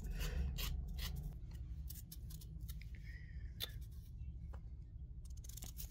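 Small knife peeling a raw potato by hand: irregular short scraping cuts and clicks as the blade slices off the skin.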